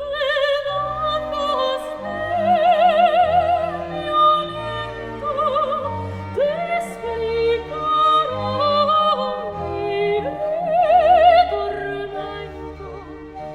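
Background music: operatic singing with strong vibrato over an orchestral accompaniment.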